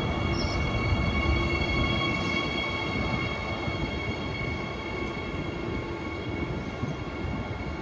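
Queensland Rail electric multiple unit moving off along the platform: a steady rumble of wheels on the track under a steady, unchanging electric whine from its traction equipment, easing slightly toward the end as the train draws away.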